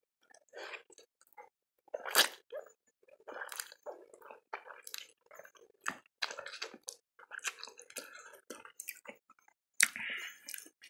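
A person slurping and chewing spicy instant noodles, in short irregular bursts of mouth noise, loudest about two seconds in.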